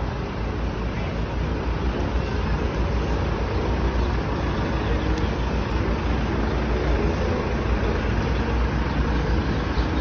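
Steady traffic noise on a flooded street: vehicle engines running with a deep, constant rumble under an even wash of noise.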